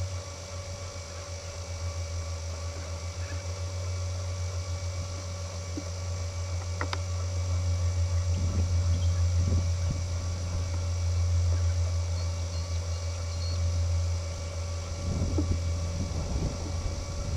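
Wind buffeting the camcorder microphone, a low rumble that swells and eases, over a steady faint hum, with a few soft thuds.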